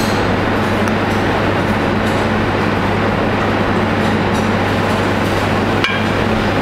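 Steady, loud rushing noise with a low hum, typical of a commercial kitchen's ventilation, with one short click about six seconds in.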